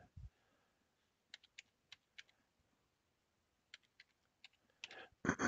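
Faint keystrokes on a computer keyboard typing a date, as scattered taps in two short runs about two seconds apart, with a soft low bump just after the start.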